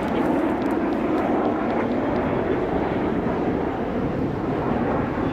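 Kawasaki T-4 twin-engine jet trainers flying overhead: a steady, unbroken rumble of jet engine noise, a little stronger in the first couple of seconds.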